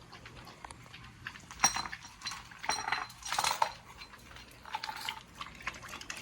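Heavy steel chain clinking and rattling on a dog's neck as the dog moves, with a few sharper ringing metal clanks in the middle.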